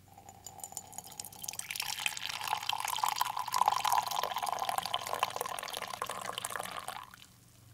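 Coffee poured in a stream into a ceramic mug, splashing and filling. The pour starts thin, grows fuller and louder after about a second and a half, and stops about seven seconds in.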